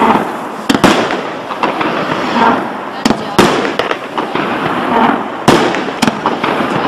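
Pandora fireworks cake firing shot after shot: sharp bangs about every second, some in close pairs, over a continuous hissing crackle from the bursting shells.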